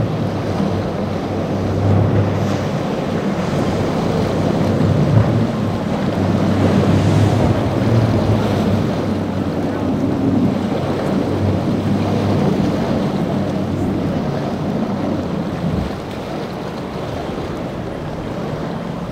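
Low drone of an Intrepid center-console boat's outboard engines running through choppy inlet waves, with the wash of breaking water and wind buffeting the microphone. The sound drops a little near the end.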